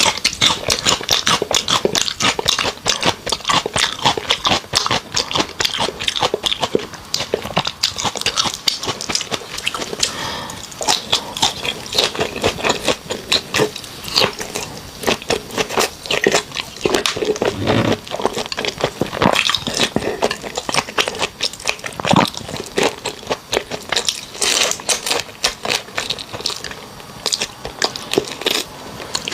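Close-miked eating of raw shrimp marinated in garlic and rice wine: wet chewing and biting with a dense, steady run of sticky clicks and crackles.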